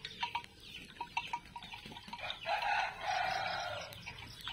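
A rooster crows once, about halfway through, a drawn-out call of about a second and a half, over many short high chirps and clucks from birds.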